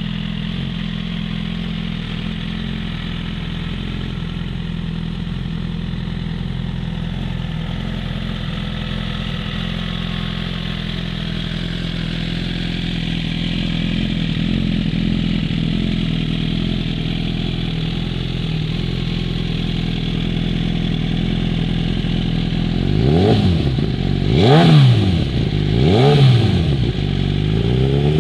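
Suzuki GSX-R 1000's inline-four engine running through a stainless HF1 slip-on exhaust, idling steadily for most of the time. Near the end it is blipped three times in quick succession, the pitch rising and falling with each rev, then revved again as it ends.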